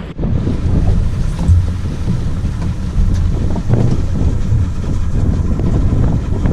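Fishing boat running at speed across open sea: wind buffeting the camera microphone over a steady low rumble from the motors and the hull on the water.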